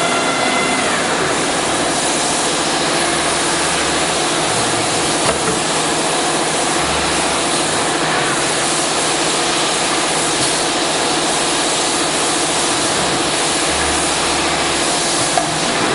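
Automatic-tool-change CNC router spindle running and cutting wood, a steady loud hiss of the bit in the board over machine hum. A whining spindle tone drops away about a second in.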